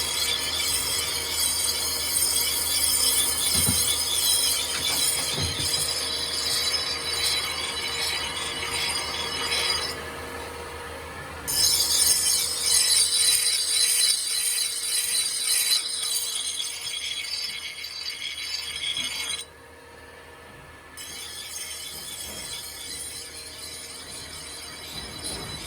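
Shrill abrasive scraping of metal on a steel knife blade, with a squealing edge to it. It stops and restarts abruptly several times, and about halfway in there is a short run of regular back-and-forth strokes.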